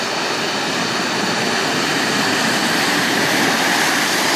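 Nissan Patrol 4WD driving through a deep muddy water hole: engine running under load over a steady rush of splashing water, getting louder as it passes close by near the end.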